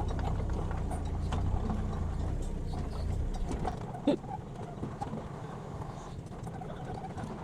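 Mini excavator's small engine running with scattered clicks and clanks as it is driven back; the low engine rumble drops away about three seconds in.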